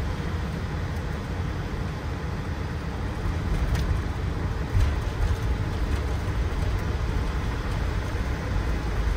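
Boeing 747-400 flight deck on the landing rollout: a steady low rumble from the engines in reverse thrust and the wheels on the runway, a little louder from about three to five seconds in.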